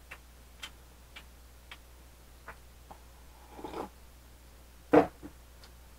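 Close-up mouth sounds of eating and drinking: faint sharp clicks of chewing about every half second, then a sip from a glass of soda and one loud swallow-like mouth sound about five seconds in.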